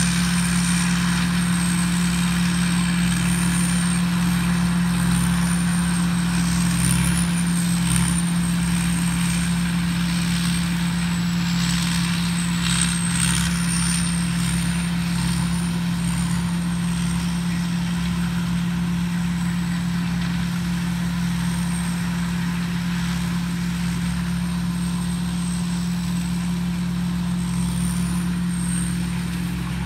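TAMCO S7000 combine harvester's Isuzu 6HK1 six-cylinder diesel running steadily under load while harvesting corn: a constant low drone.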